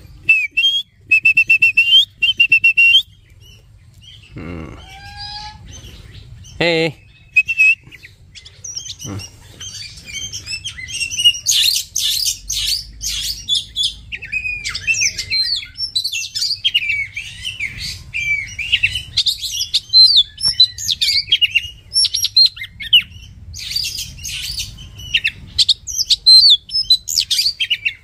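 Oriental magpie-robin song: a few sustained whistled notes about a second in, then from about eleven seconds on a dense run of rapid, varied chirps and whistles. A couple of lower, separate calls come a few seconds in.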